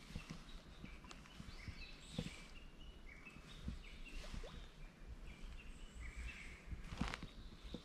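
Small birds calling and singing faintly, in short repeated chirping phrases, with scattered soft clicks and a brief rustle about seven seconds in.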